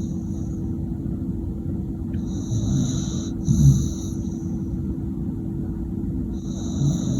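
Pit bull snoring in its sleep: a wheezy, hissing breath in and out about every four seconds, each with a low rattle. A steady low hum runs underneath.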